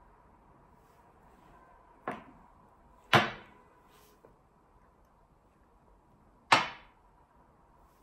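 Wooden xiangqi pieces slapped down onto a felt-covered glass table as moves are played: three sharp clacks, a lighter one about two seconds in and louder ones about three and six and a half seconds in.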